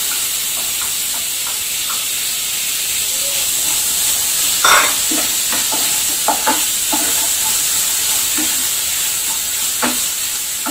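Chopped tomato and onions sizzling in hot oil in a non-stick pan, stirred with a wooden spatula that scrapes and knocks against the pan a few times.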